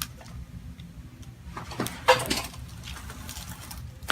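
Joints cracking during a chiropractic adjustment: a quick run of sharp cracks about two seconds in, the loudest among them, and one more sharp crack near the end.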